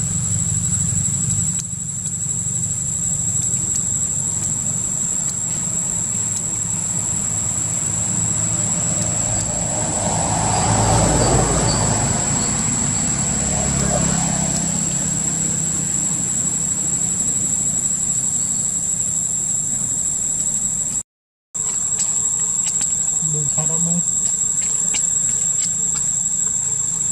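Steady high-pitched insect drone over a low background rumble that swells for a few seconds near the middle. The sound drops out briefly about two-thirds of the way through.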